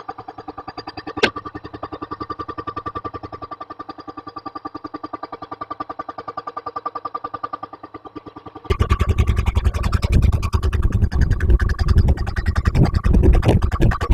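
Jackhammer hammering in a rapid, even rhythm of many blows a second, with a steady whine under it and one sharp click early on. About nine seconds in it turns much louder and rougher.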